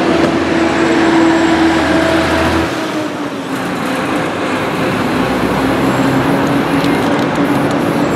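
Busy street traffic with a vehicle engine running close by; its low hum drops away about a third of the way in, leaving a steady wash of traffic noise.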